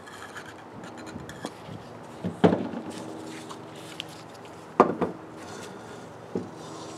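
Cast-iron Model T transmission drums being handled and fitted together: light metal rubbing and clinking, with two sharp metal knocks about two and a half and five seconds in, each ringing briefly, and a smaller knock near the end.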